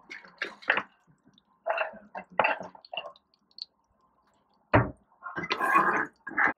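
Whole spices (cinnamon, cloves, star anise) crackling in hot oil and butter in a frying pan, in short irregular spurts. A single knock about three-quarters through, then a spatula stirring the spices around the pan for about a second.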